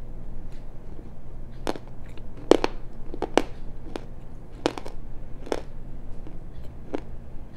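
Close-miked chewing of medium-hard edible clay: sharp, irregular crunches, several coming in quick pairs through the middle, over a faint steady low hum.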